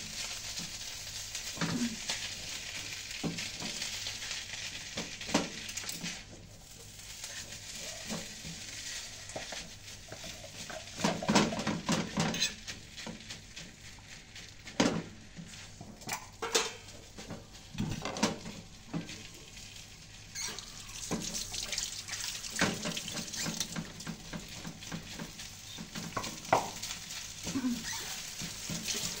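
Salmon fried rice sizzling in a hot pan while being stirred, with scattered scrapes and knocks of the spatula against the pan.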